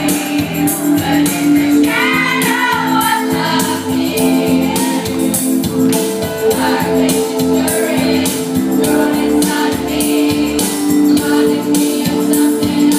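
Youth choir singing through microphones over amplified accompaniment with a steady, tambourine-like beat.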